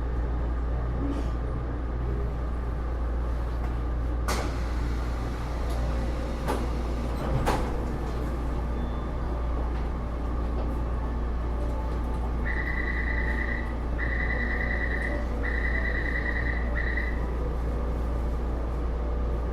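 Inside a stationary Taipei Metro C301 car: a steady hum from the car's equipment with a few sharp knocks. About twelve seconds in, the door-closing warning sounds as four high beeps at one pitch, the last one cut short, signalling that the doors are about to shut.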